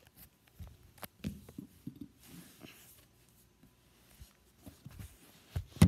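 Handling noise from a camera being picked up and carried: scattered knocks and brief rubbing, with one loud thump near the end.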